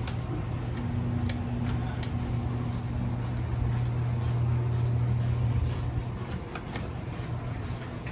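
Ceiling fans running, a steady low electric motor hum with scattered light ticks.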